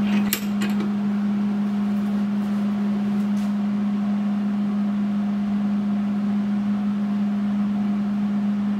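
A steady machine hum at one constant pitch, like a fan motor running, with a few light metallic clicks about half a second in as hands work the bench vise.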